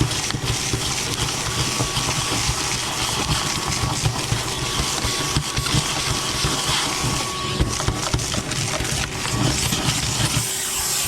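Vacuum cleaner running steadily, with grit and debris clicking and rattling as it is sucked up.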